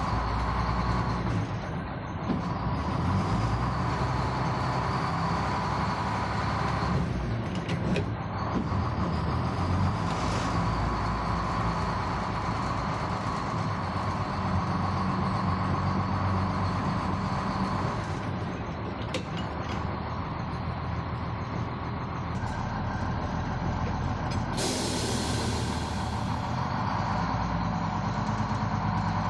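A machine running steadily with a hum, and a hiss of about a second and a half near the end.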